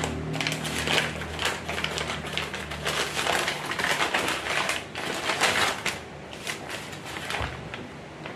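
Brown paper packaging crinkled and torn open by hand, a dense crackling rustle that thins out to a few last crinkles about six seconds in.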